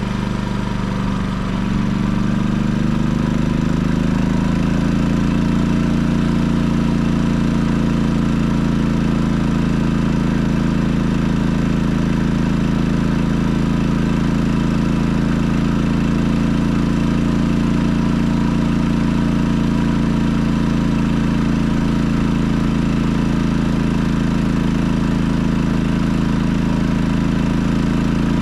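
Firman WH3200iE inverter generator running on propane. Its engine speeds up, rising in pitch over the first few seconds, as it takes on a load of about 1,500 watts, then runs steadily at that higher speed.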